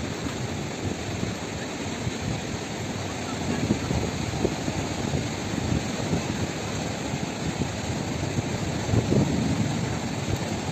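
A fast-flowing river rushing steadily, a low churning noise that swells now and then.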